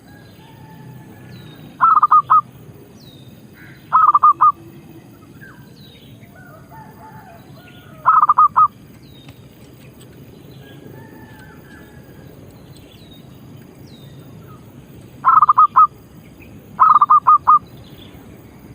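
Zebra dove (merbok) calling: five short phrases of three or four quick rolling coos, well spaced, the last two close together near the end. Faint high chirps of other small birds and a low steady hum lie underneath.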